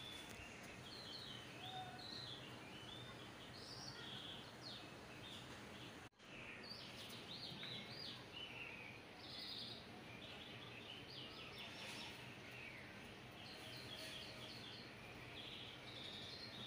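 Faint birdsong, many quick repeated chirps, over a steady low hiss and hum; the sound cuts out for an instant about six seconds in.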